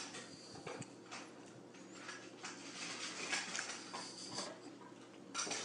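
Faint sounds of a startled domestic cat on a granite countertop: a few soft scattered taps and short hushed noises over a low steady hum, with a slightly louder noisy patch near the end.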